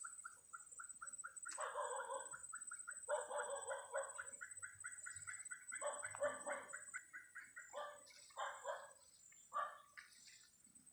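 A dog barking, faint, in a series of short barks at irregular intervals, some in quick pairs. To the listener this barking usually means the dog has spotted an animal.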